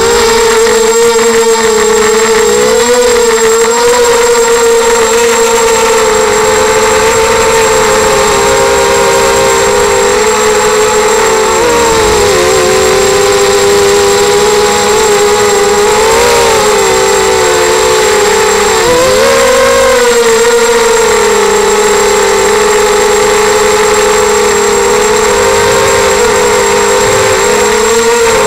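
ZMR250 racing quadcopter's four brushless motors and propellers whining, heard close from the onboard camera. The pitch holds mostly steady, with brief dips and swells a few times as the throttle changes, and a thin high steady tone sits above it.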